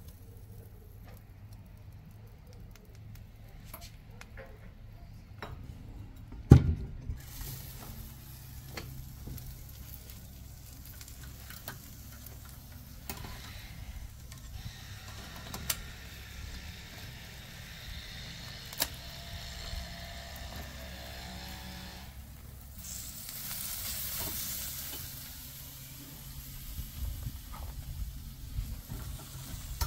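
A sharp knock about six seconds in, then lobster halves basted with garlic lemon butter sizzling steadily on a hot grill grate. The sizzle swells for a few seconds near the end, with a few small clicks.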